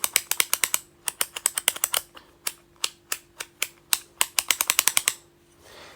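Rapid, uneven clicking from the switch on a Switch box fidget toy being pressed over and over. The clicks stop about a second before the end.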